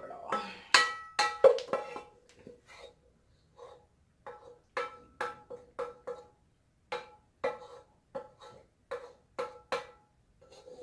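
A spoon knocking and scraping against a metal saucepan as cheese sauce is scraped out. Each knock rings the pan. A loud cluster of knocks comes in the first two seconds, and after a short gap come steady taps about twice a second.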